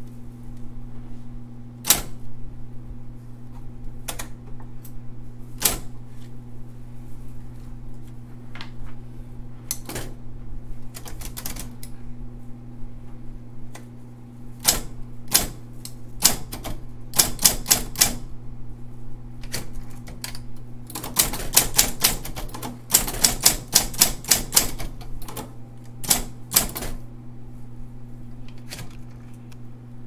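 Royal Award Series 1200 electric typewriter (model SP-8500) with its motor humming steadily. Single keystrokes click sharply here and there, and there is a quick run of typing about two-thirds of the way through.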